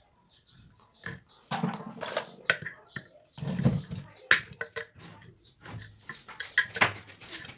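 An irregular series of sharp clicks and knocks, some with a dull thud beneath, starting about a second in.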